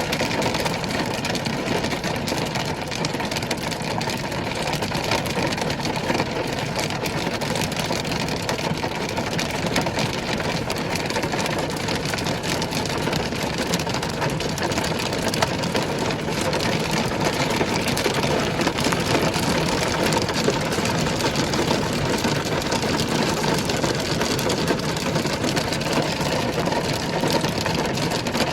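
Heavy hail pelting down: a dense, steady clatter of many small impacts with no let-up.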